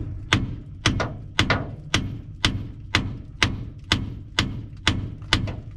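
Hammer blows on a rusted, seized cast-iron transmission part of a 1948 Diamond T truck, about two sharp strikes a second, each ringing briefly. The blows don't sound healthy to the mechanic, who fears the rust-thinned cast iron will crack.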